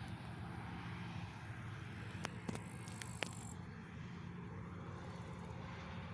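Distant Massey Ferguson combine harvester running steadily as it harvests: a low drone. A few sharp clicks come about two to three seconds in.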